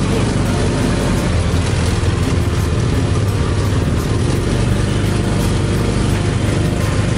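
Tuk tuk's small engine running steadily as the three-wheeler drives along, with road noise, heard from the open rear passenger seat.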